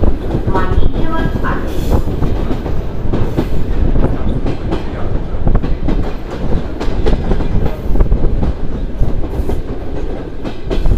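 ED2T commuter electric train running, heard from inside the carriage at an open window: a steady rumble with wheels clicking over rail joints, and wind rushing in.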